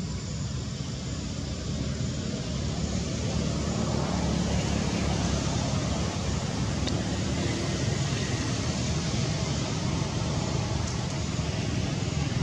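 Steady rumble of road traffic, which grows louder about four seconds in and holds.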